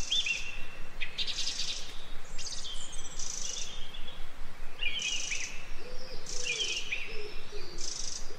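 Woodland birdsong: several birds chirping and singing in short, repeated high notes and trills, with a lower call joining a little past halfway.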